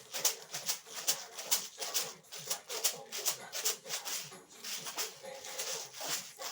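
Maracas shaken in a steady rhythm, about three to four shakes a second.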